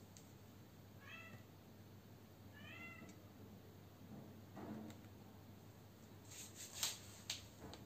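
A cat meowing faintly twice, two short calls that rise and fall, about a second and a half apart. A few sharp clicks follow near the end.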